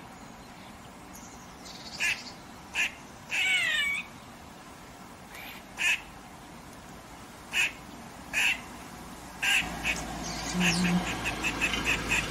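Grey squirrel barking its alarm call: single short barks a second or two apart, one longer wavering call that falls in pitch about three seconds in, then a fast run of short chucks near the end.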